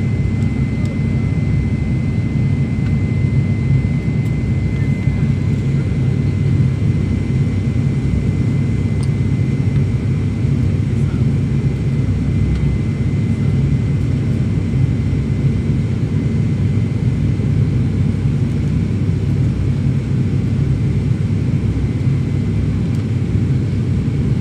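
Steady low drone of a TruJet ATR 72's turboprop engines and propellers, heard inside the passenger cabin during the approach. A thin high whine sits over it at first and fades out about six seconds in.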